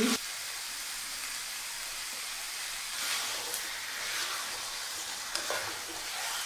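Marinated chicken pieces sizzling steadily in hot mustard oil in a wok while being stirred with a spatula, with a couple of soft knocks of the spatula against the pan.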